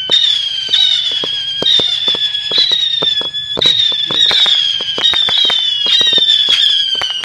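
Old Class B-era Phantom Fireworks 200-shot cake firing in rapid succession: each shot goes off with a whistle that falls slightly in pitch, a new one every half second to a second, overlapping, over a steady run of sharp pops.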